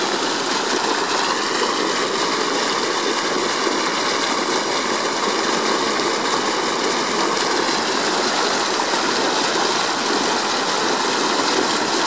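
Steady rushing and churning of water from a turbulent outflow boiling up into a canal.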